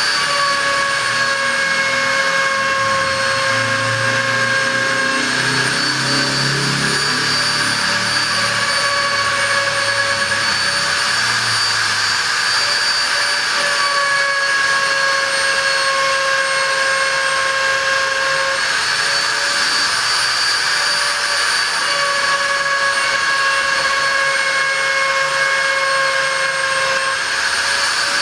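CNC router spindle running with a steady high-pitched whine over a constant hiss as it cuts a pattern into 5 mm aluminium composite panel. A low rumble sits under it for roughly the first twelve seconds.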